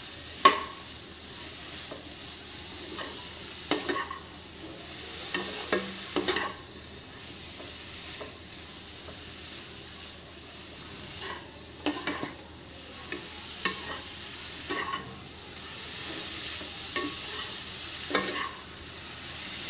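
Bitter gourd and onion masala frying with a steady sizzle in a non-stick kadai while a perforated steel spatula stirs it. The spatula makes irregular scrapes and taps against the pan.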